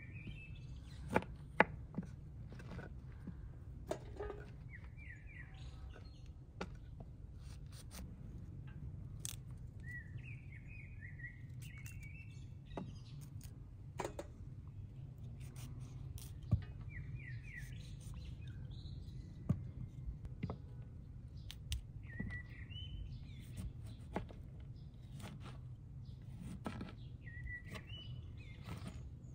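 Small knife cutting cauliflower florets from the head, a scatter of crisp clicks and snaps with a few sharper cracks. Behind it, a bird repeats a short chirping phrase every few seconds.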